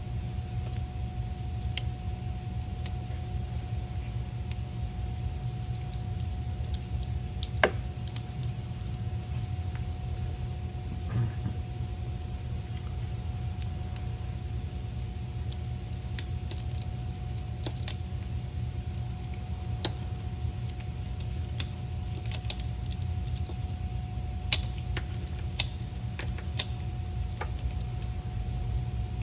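Hand tools and metal parts being handled: scattered light clicks and clinks, the sharpest about seven and a half seconds in and again about twenty-four seconds in, over a steady low hum with a faint steady tone.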